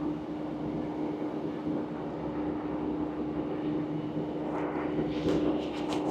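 Interior of a Class 150 diesel multiple unit under way: the underfloor diesel engine runs with a steady drone over the wheel and rail noise. About two-thirds of the way through, a run of sharp clicks sets in.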